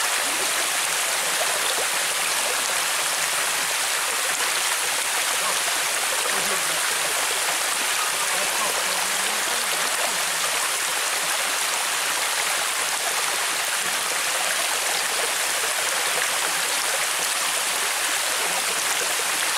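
Waterfall pouring into a swimming hole: a steady, even rush of falling water.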